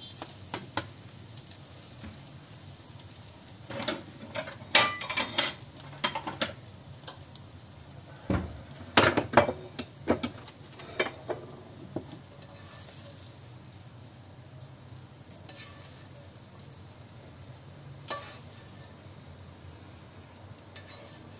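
A spoon stirring and scraping scrambled eggs in a nonstick frying pan over a faint sizzle. Clusters of sharp clinks and knocks come from about 4 to 6 seconds and 8 to 11 seconds as the spoon strikes the pan and the bowl the eggs are moved into. It is quieter after that, with one more clink near the end.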